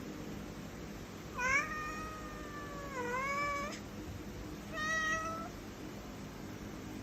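Domestic cat meowing twice: a long drawn-out meow that dips and rises again near its end, then a shorter meow a second later.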